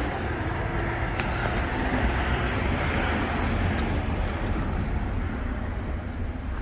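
Steady vehicle and traffic noise with wind on the microphone, and a faint click about a second in.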